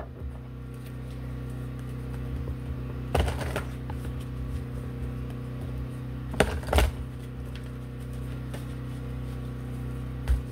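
Tarot cards being handled: a few short rustling, brushing card sounds about three seconds in, twice around six to seven seconds in, and once near the end, over a steady low hum.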